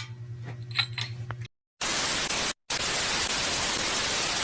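Loud, even static hiss like a TV-static editing transition. It starts after a brief dead-silent gap about a second and a half in and breaks off for a moment twice. Before it there is a faint low hum with a few light clicks.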